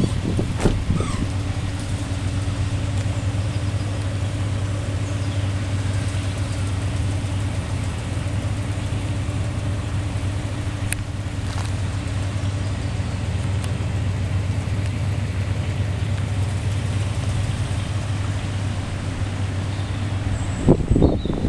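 Pickup truck's engine running at a steady low hum as it creeps slowly through floodwater, its pitch unchanging; the hum stops near the end.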